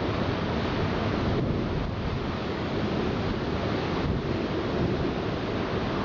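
Storm wind buffeting the microphone over heavy seas breaking, a dense steady rush with no pauses.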